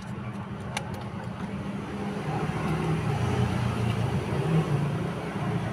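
A motor vehicle engine running close by, its low rumble growing louder from about two seconds in and easing slightly near the end, as if passing or pulling up.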